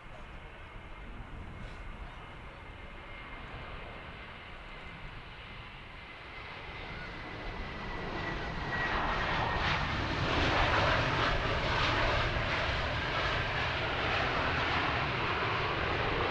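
Jet airliner engines, a low rumble with a faint high whine sliding slightly lower, then swelling into a loud, even roar about halfway through as the aircraft comes close.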